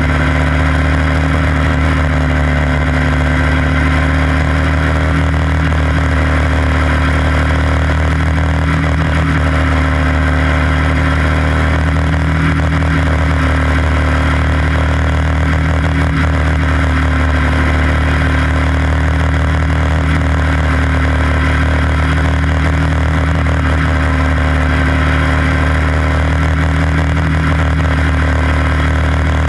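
Quarter midget race car's small engine, heard from on board, running hard and steady with its pitch holding nearly level through the laps.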